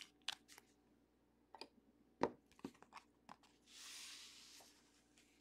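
Faint clicks and taps of trading cards in rigid plastic holders being handled and set down on a table, the sharpest a little over two seconds in, then a soft rustle lasting about a second around four seconds in.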